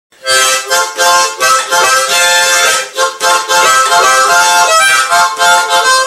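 Harmonica music played in short, rhythmic chords.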